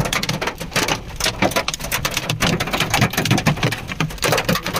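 Hailstones pelting a hard surface: a dense, irregular clatter of many sharp impacts.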